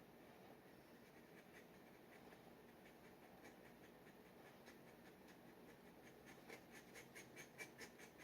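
Faint scratching of a G nib dip pen on paper, turning near the end into a quick run of short strokes, about four a second.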